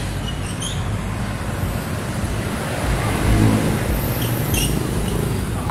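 Steady low rumble of road traffic, swelling a little past the middle.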